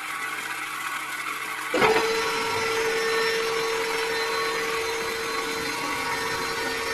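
Small DC motor of a miniature model borewell drilling rig running steadily with an even whir, getting louder about two seconds in, when a steady hum joins it.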